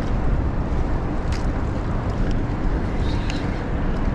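Steady wind rumbling on the microphone over light water sounds around a kayak, with a few faint clicks about a second apart.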